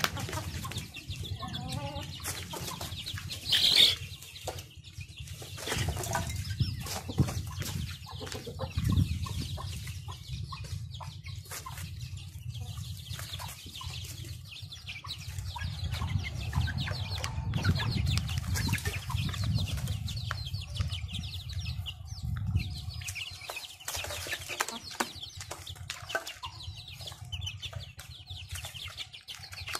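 Chickens clucking and flapping their wings while feeding, with many scattered short taps. A brief, loud high-pitched sound stands out about four seconds in.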